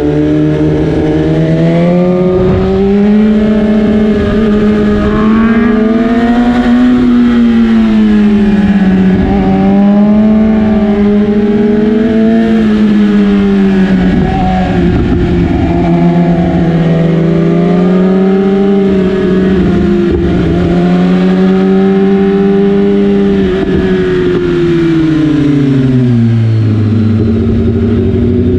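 BMW S1000RR inline-four engine, heard from the rider's seat, pulling in second gear through a run of bends. Its pitch rises and falls with the throttle over a rush of wind and road noise, and near the end the revs drop steeply as the bike slows.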